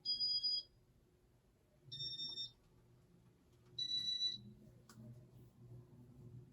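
Casablanca Venus ceiling fan's control electronics beeping three times in demo mode, each beep a short electronic tone at a different pitch. A low motor hum comes in around the second beep, and there is a sharp click about five seconds in.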